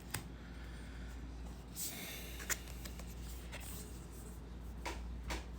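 Oracle cards being handled: a soft sliding rustle of a card about two seconds in and a few light clicks and taps as cards are moved, over a steady low hum.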